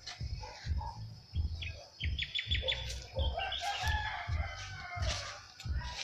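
A rooster crowing once in the middle of the clip, with a quick run of high chirps from small birds just before it. Low buffeting rumbles on the microphone recur throughout.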